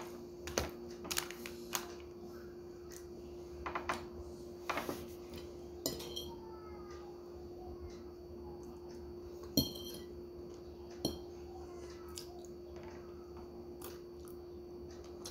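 Metal spoon and fork clinking and scraping against a bowl while eating noodles: about ten separate sharp clinks, a few of them ringing briefly. A steady faint hum runs underneath.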